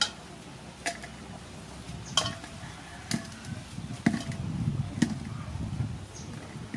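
Items knocking against a large stainless steel bowl about once a second, six knocks in all, several leaving a short metallic ring. Low handling noise in the bowl grows in the second half.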